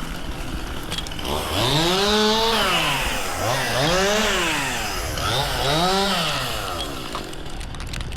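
Chainsaw engine revving up and falling back three times in smooth swells, with a lower steady running between them.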